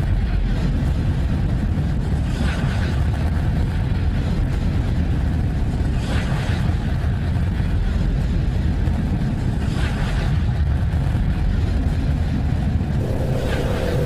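Space instrument data turned into sound: a steady deep rumble with a hissing swell about every four seconds, and a faint steady tone joining near the end.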